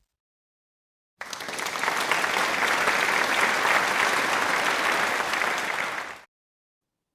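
Crowd applause, many hands clapping together. It starts about a second in and stops near the end, lasting about five seconds.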